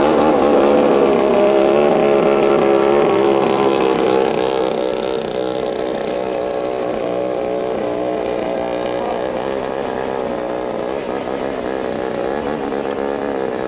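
Racing speedboat's BT9 two-ring class engine running at high revs, its pitch wavering as the boat speeds over the water. It is loudest for about the first four seconds, then drops a little in level and carries on steadily.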